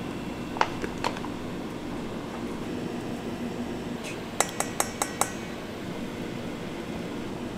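Stainless-steel bowl and utensils clinking against metal as sauce is scraped from a mixing bowl into a steel funnel: two clinks about half a second and one second in, then a quick run of about five clinks a little after four seconds in, over a steady background hum.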